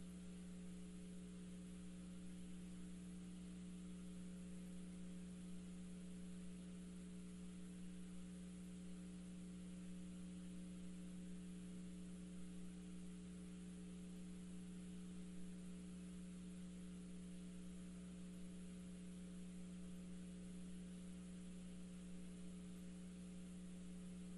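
Steady electrical mains hum, a low tone with a few fainter higher tones over it, with a faint hiss.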